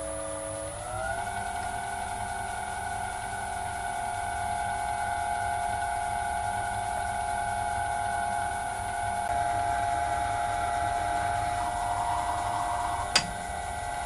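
Vintage metal lathe running with a steady whine from its motor and drive, the pitch stepping up slightly about a second in and then holding. A centre drill is fed into the spinning workpiece, adding a faint cutting noise in the last few seconds, with one sharp click near the end.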